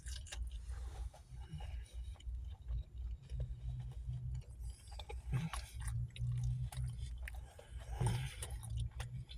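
A person chewing food close to the microphone, with many small wet clicks and smacks and a low hum now and then.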